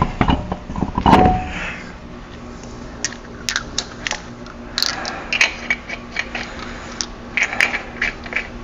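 Scattered light metallic clicks and knocks of a truck tire and wheel being hung back on the front hub, with a heavier knock about a second in, over a faint steady hum.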